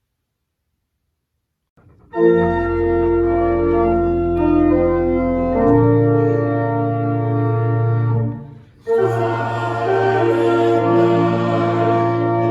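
Organ playing held chords that change every second or two, starting about two seconds in after silence, with a short break about eight and a half seconds in before the chords resume.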